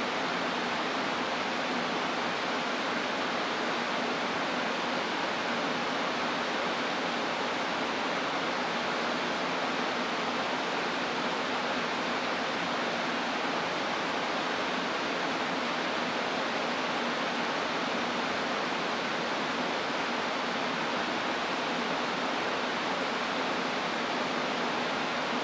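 Station platform ambience: a steady, even rushing hiss that does not change, with a Shinkansen train standing at the platform opposite.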